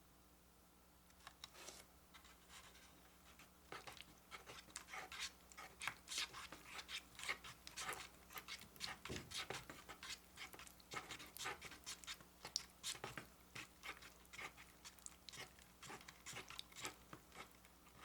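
Faint, rapid run of small wet clicks and crackles from soft slime candy, close-miked.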